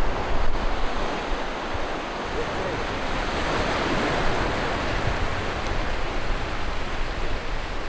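Small waves breaking and washing up on a sandy beach: a steady hiss of surf that swells about halfway through, with wind rumbling on the microphone.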